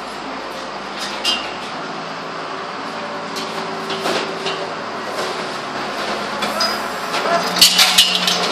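Scattered sharp knocks and clinks over a steady background hum, with a quick cluster of louder metallic clinks and knocks near the end.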